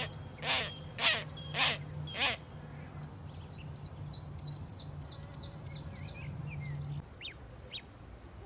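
Birds calling: five loud, harsh calls about half a second apart, then a quick series of high chirps and two thin falling notes near the end.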